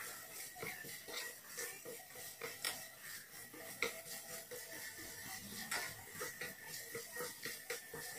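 A cooking utensil stirring and tossing strips of carrot and radish in a small nonstick frying pan: irregular clicks and scrapes against the pan, a few a second.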